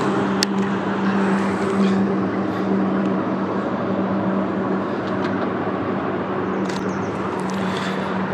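A steady engine hum over a rushing noise, like a motor vehicle running.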